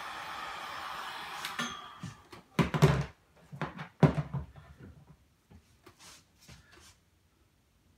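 A hot-air blower running steadily, switched off about a second and a half in, followed by a series of knocks and clatters of tools and objects being handled and set down, the loudest about two and a half and four seconds in.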